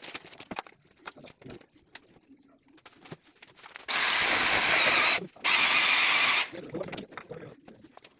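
Handheld electric drill run in two bursts of about a second each with a short gap between, its motor giving a steady high whine; light knocks of tools and wood around them.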